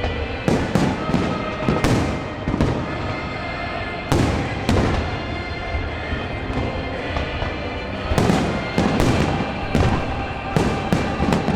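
Fireworks bursting in quick clusters of sharp bangs, about half a second to four seconds apart between clusters, with music playing underneath.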